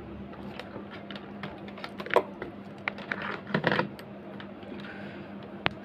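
Multimeter probe tips tapping and scraping on the MOSFET legs of an inverter circuit board in irregular clicks, with a cluster of them in the middle and one sharp click near the end. No continuity beep sounds: the MOSFETs are testing free of shorts.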